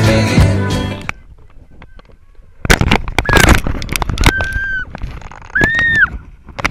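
Music cuts off about a second in. Then come clattering and wind buffeting on a camera riding a rope swing with chains, and three held, high-pitched calls that rise and fall.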